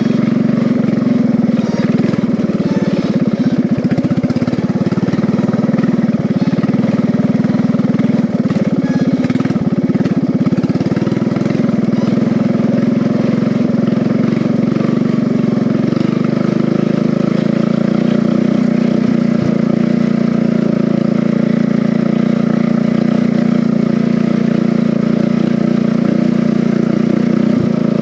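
Riding mower engine running steadily as the converted race mower is driven, with no big changes in speed.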